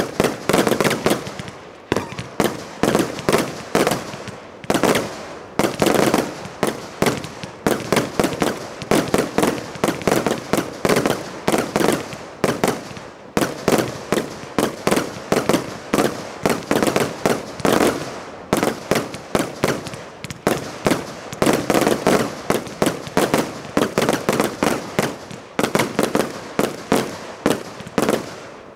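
Zeus Fireworks 'Legend', a 135-shot Category 2 firework cake, firing: a rapid, unbroken barrage of shots and aerial bursts, several a second.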